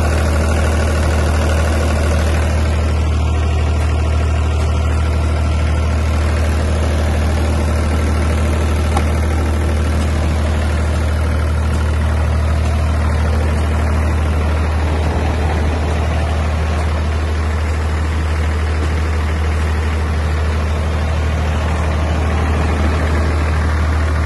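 Mahindra 15 kVA generator's diesel engine running steadily at an even speed, a loud, unchanging low drone.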